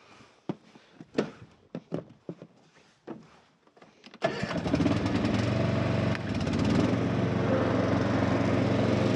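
A few light clicks and knocks, then the Stiga Tornado 398 ride-on mower's single-cylinder ST 450 petrol engine comes in abruptly about four seconds in and runs steadily, a little louder from about seven seconds in.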